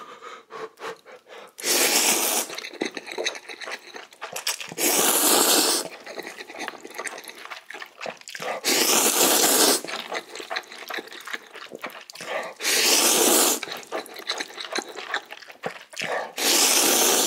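A person slurping instant ramen noodles from chopsticks: five long, wet slurps about every three to four seconds, with soft chewing between them.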